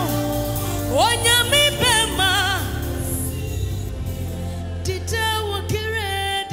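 Live gospel worship band, with electronic keyboards, bass guitar and drums, playing a song while a voice sings long notes that waver in pitch over a steady bass line.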